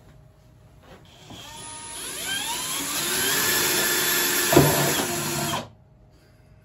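Two cordless drill/drivers, a Bosch and a green Metabo HPT, driving screws into a wooden board together. The motors spin up with a rising whine about a second in and run loud for about four seconds, with one sharp knock near the end, then cut off suddenly.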